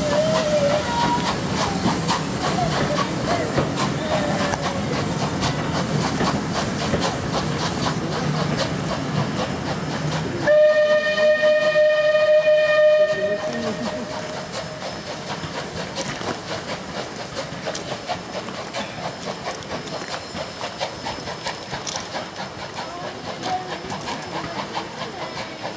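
Steam-hauled passenger train pulling away over the points: a steady rumble of coach wheels with hissing steam, then about ten seconds in a single steam whistle blast of about two and a half seconds, after which the train grows quieter to a light clicking of wheels on rail joints as it draws away.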